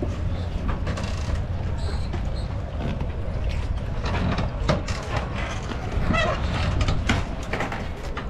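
Wind rumbling on the microphone, with scattered knocks and creaks from a floating dock moving in the chop.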